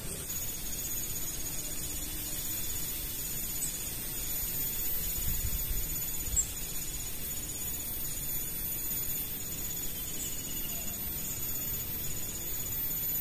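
Crickets trilling: rapid high pulses coming in bursts about a second long with short gaps, over a steady high-pitched insect whine.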